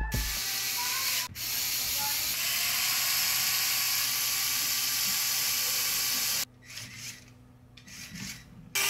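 Lego Technic forklift's Power Functions electric motors driving plastic gears, running with a steady mechanical whirr. It stops briefly about a second in, drops away for about two seconds near the end, then starts again.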